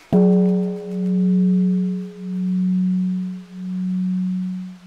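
A single struck bell: one deep, ringing tone with a few fainter higher overtones, swelling and fading in a slow regular pulse about every second and a half as it rings on.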